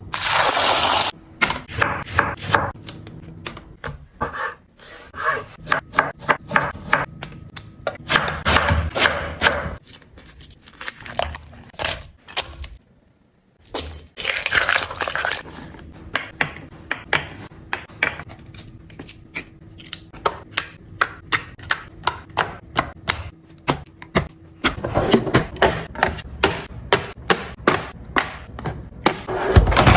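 Close-miked kitchen handling sounds: food and containers being picked up, set down and tapped, making many sharp clicks, knocks and scrapes. Near the end this becomes an even run of quick knocks, about two or three a second.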